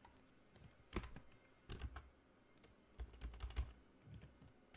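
Typing on a computer keyboard: quiet keystrokes in a few short bursts with pauses between, the longest run about three seconds in.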